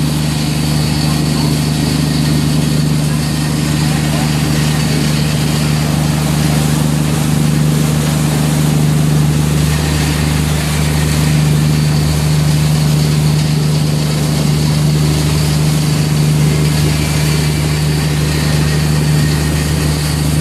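A boat's engine running at a steady speed, a loud, unbroken low drone heard from on board.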